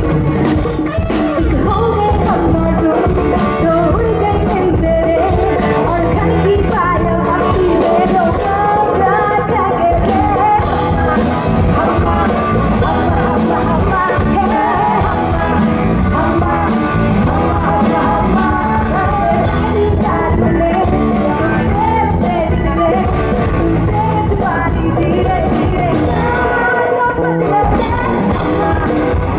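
Live band music amplified through a stage PA: a woman singing into a microphone over drum kit, electric guitar and keyboards, playing steadily throughout.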